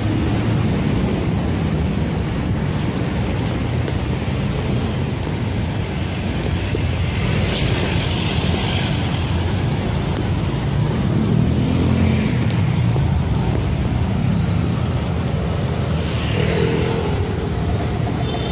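Steady street traffic noise: motor vehicles running along the road, with a constant low rumble.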